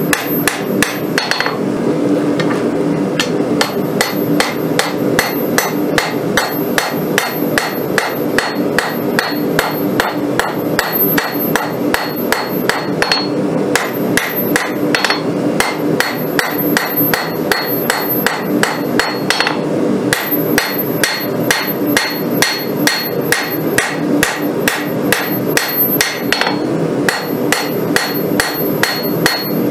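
Hand hammer striking a red-hot steel bar, a rail spring clip being forged into a sword blade, on an anvil: a steady, fast rhythm of hammer blows with little pause, over a steady low hum.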